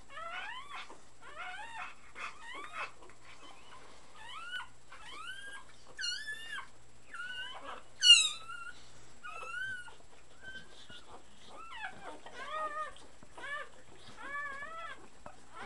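Three-week-old puppies squeaking and whining while nursing, a quick string of short rising cries. There is one sharper, louder squeal about eight seconds in.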